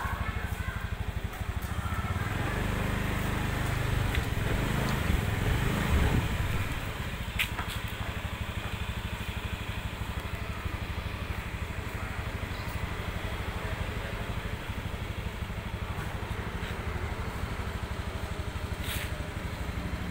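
A vehicle engine running steadily with a low, even pulse, a little louder for the first several seconds before settling.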